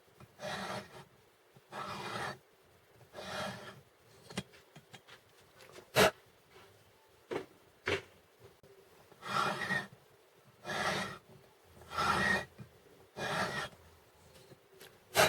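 Hand-turned valve seat cutter rasping against a valve seat in a MeMZ-2471 cylinder head: short scraping strokes about every 1.3 s, three near the start and four more later on. Between the two runs of strokes, sharp clicks, the loudest about six seconds in, and one more sharp click near the end.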